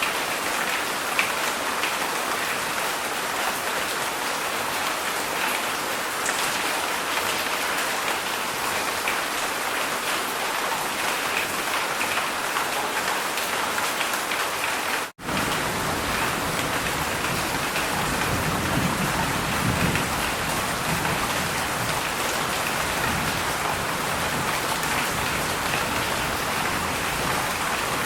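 Heavy rain falling steadily in a dense hiss of drops. About halfway through the sound cuts out for an instant, and after it a low rumble joins the rain.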